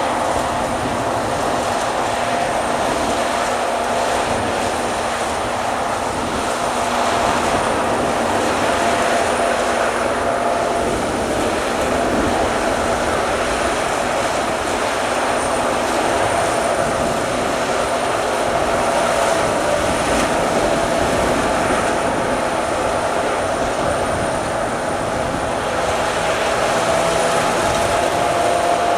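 Corn combine harvester running steadily: a continuous mechanical drone of engine and threshing gear, with a constant high whine.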